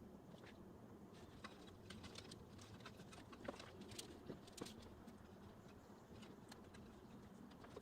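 Near silence: faint room tone with scattered light, irregular ticks.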